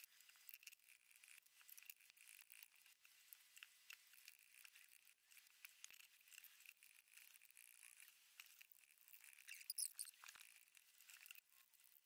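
Fingers rubbing and scraping charcoal paste against a ceramic bowl. It makes faint, irregular gritty scratches and small squeaks, a little louder near the end.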